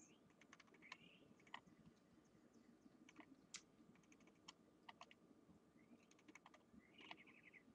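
Near silence: room tone with faint, irregular clicks from a computer keyboard and mouse.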